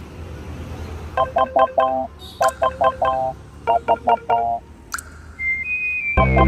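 Background music. A short phrase of four or five quick pitched notes repeats three times over low street ambience. Then a brief sliding tone sounds, and a loud bass-heavy beat comes in near the end.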